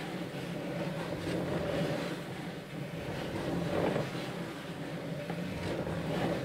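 Spirograph-style drawing machine running, its rotating wooden discs and pen arm giving a steady mechanical hum.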